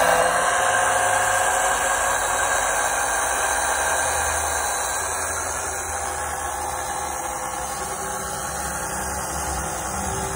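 Fluid extraction pump running steadily, drawing power steering fluid out of the reservoir through a tube into a jug: a low motor hum with a hiss, easing a little quieter after about four seconds.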